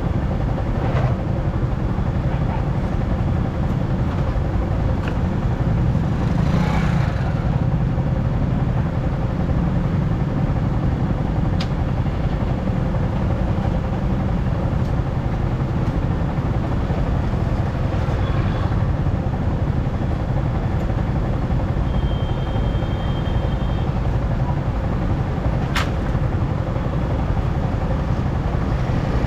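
Steady low rumble of a vehicle on the move, with wind buffeting the microphone. A brief high tone sounds about two-thirds of the way through, and a sharp click comes near the end.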